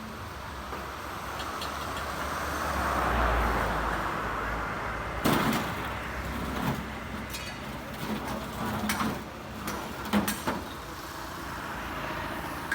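A vehicle rumbling past, swelling and fading, followed by several sharp knocks and clanks.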